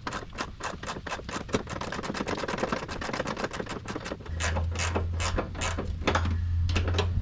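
Socket ratchet clicking in a rapid, fairly even run as the top nut of a rear shock absorber is undone, with a steady low hum joining about four seconds in.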